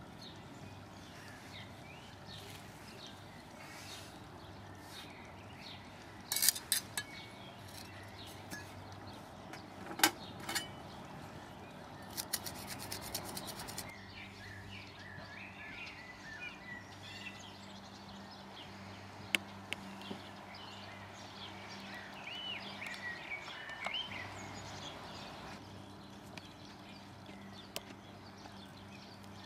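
Garden background with small birds chirping for several seconds in the middle, and a few sharp knocks and a quick run of clicks in the first half, from hand-tool work on the brick edging.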